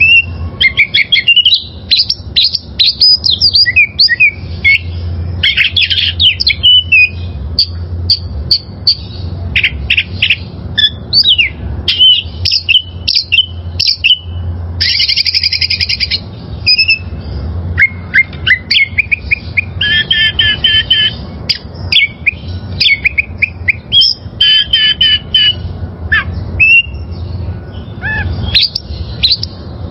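Oriental magpie-robin (kacer) singing a long, varied song of quick whistles, slurred glides, rapid trills and harsh buzzy notes, with hardly a pause.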